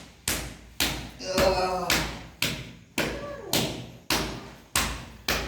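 A steady run of sharp thumps, about two a second, each dying away quickly. A brief human vocal sound comes about a second and a half in.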